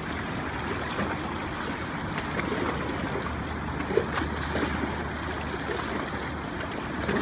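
Steady wash of shallow water moving and lapping at the shore, with a faint click about four seconds in.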